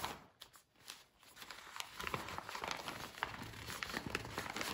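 Cross-stitch kit's plastic packaging bag crinkling as the instruction sheet and pattern are slid out by hand: a dense run of small crackles that starts about a second in.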